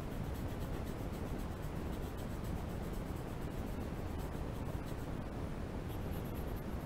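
Coloured pencil scratching on drawing paper in many quick, short shading strokes, over a steady low background rumble.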